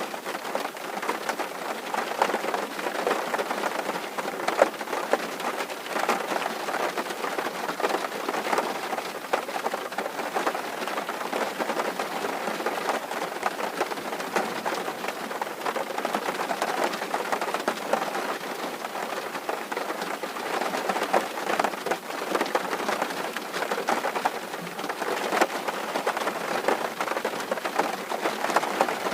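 Steady rain drumming on a tin roof, a dense patter of countless drops.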